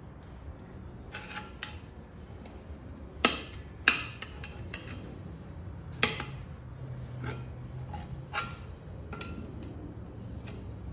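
Irregular sharp metal clanks and clinks of hand tools, a long screwdriver and a maul, working a tire bead off a small tractor's steel wheel rim. The loudest knocks come about three to four seconds in and again around six seconds.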